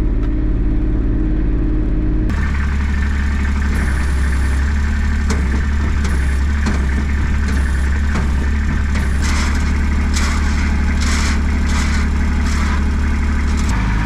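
A vehicle engine running steadily, heard close up, with a series of sharp rattles in the last few seconds. The sound changes abruptly about two seconds in.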